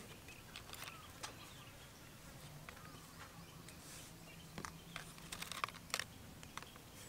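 Faint, light clicks and taps of thin bamboo skewers being handled as meatballs are pushed onto them by hand, with a quick run of louder clicks a little before the end.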